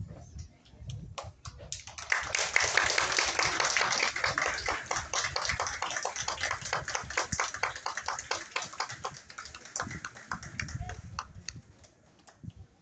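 Audience applause: a few scattered claps at first, then clapping swells about two seconds in, stays loud for several seconds and dies away near the end.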